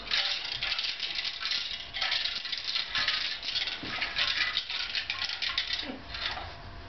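Dry kibble rattling inside a treat-dispensing cube as a cocker spaniel noses it around on the carpet, in uneven bursts of quick rattles that die away near the end.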